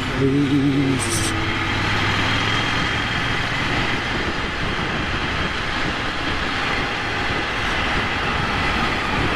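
Motorcycle riding at speed: a Ducati Monster 797's air-cooled twin-cylinder engine running under a steady rush of wind noise.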